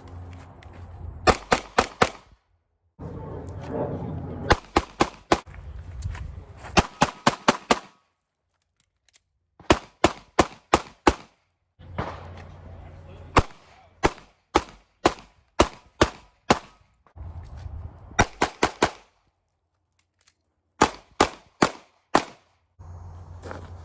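Pistol fire in quick strings of two to six shots, several shots a second, with short pauses between strings. A low rumble runs under some of the strings, and the sound drops to dead silence a few times where the footage cuts.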